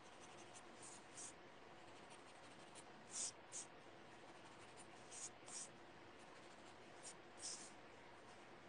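Faint, scratchy pencil strokes on paper, mostly in quick pairs, as shading is rubbed onto a drawing tile.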